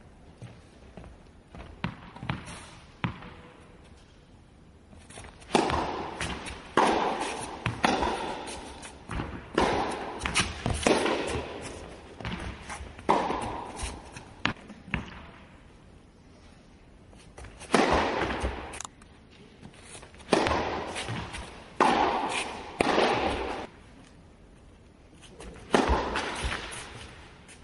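Tennis balls being struck by rackets in a rally: sharp hits about one to one and a half seconds apart, in runs of two or three with short pauses between, each with a brief echo.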